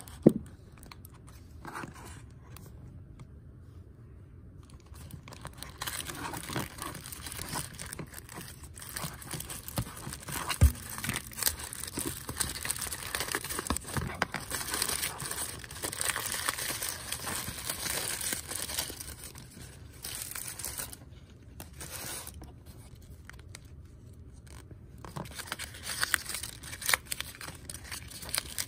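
Tissue paper and a crinkly foil-like wrapper being unwrapped and torn by hand, with dense crinkling and tearing that thins out briefly and picks up again near the end. A sharp plastic click sounds right at the start as the toy ball's halves come apart.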